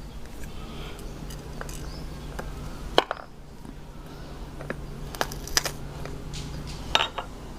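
Light clicks and taps of small kitchen items being handled and set into a small container, with a sharper knock about three seconds in, a few quick taps a little past five seconds and another knock near the end, over a steady low hum.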